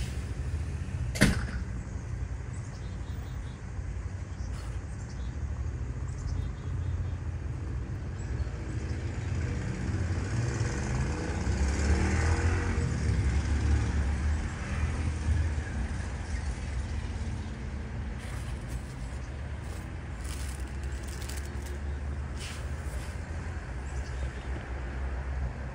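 Steady low outdoor rumble that swells for a few seconds in the middle. There is a single sharp knock about a second in and a few light clicks near the end, from small objects being handled and set down.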